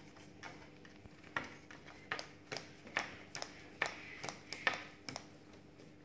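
A golden conure tapping at a small mirror and wooden tabletop with its beak and feet as it dances: a dozen or so sharp, uneven taps.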